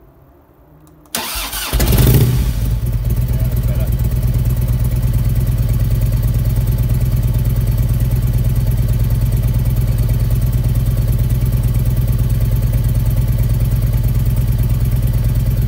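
Harley-Davidson Evolution 1340 cc V-twin with a freshly fitted Mikuni flat-slide carburettor: the electric starter cranks briefly about a second in, the engine catches and flares, then settles into a steady idle on choke.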